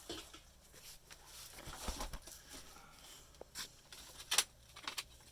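Scattered rustling, scuffing and light taps from a worker moving about and handling things in a cramped crawl space, with a few sharper knocks near the end.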